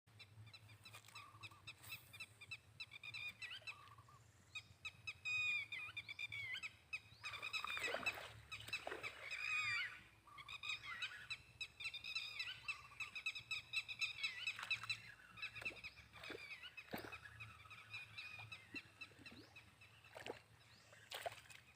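Many small animals calling at once in high, overlapping chirps, with a few short sharp knocks scattered among them.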